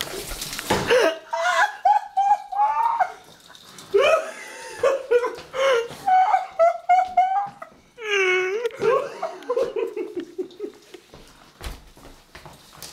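People laughing hard in a small room, in repeated loud bursts of giggling and belly laughter.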